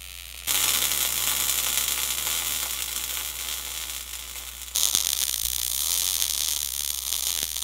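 MIG welding arc laying an overhead fill bead on steel with .035" ER70S6 wire at about 20 volts and 300 inches per minute: the steady crackle of short-circuit transfer. It starts about half a second in and grows louder about two-thirds of the way through.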